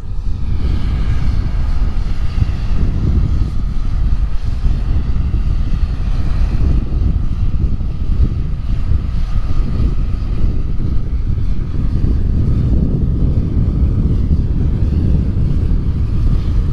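Combine harvester running, a loud steady low rumble with a faint whine from the machinery above it.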